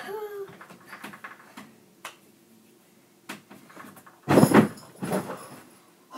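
Heavy thud of a child landing on a bed mattress after jumping down from a top bunk, about four seconds in, followed by a smaller bump a moment later. A few light knocks come before it.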